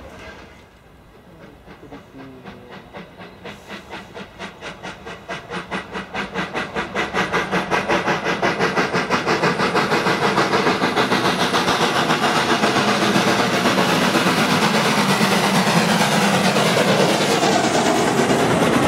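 FS Class 625 steam locomotive (a two-cylinder 2-6-0) working under steam with a steady, rhythmic chuff of exhaust beats. It grows steadily louder as the engine draws near and passes close by.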